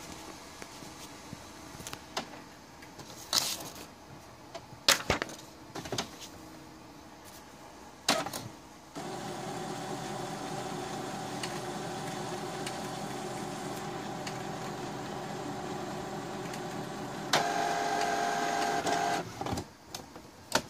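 Epson WF-2750 inkjet printer running a print head cleaning cycle. A few sharp clicks and knocks of the mechanism come first, then a motor runs steadily for about eight seconds. It grows louder for a couple of seconds near the end and stops, followed by a few more clicks.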